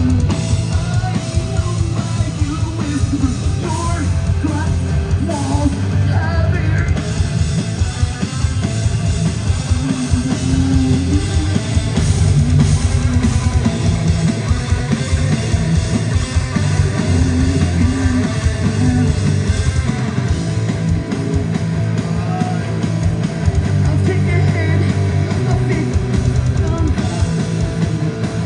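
Rock band playing live and loud: drum kit, bass guitar and electric guitar, with a singer's vocals over it at times.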